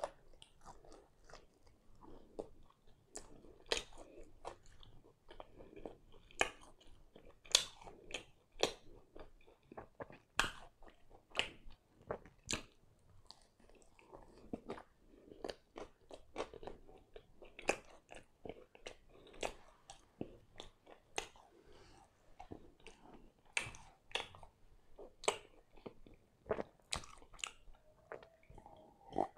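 Close-miked chewing of pan pizza: wet, irregular mouth clicks and soft crunches of the crust, one to three a second. Near the end he turns to a drink from a glass.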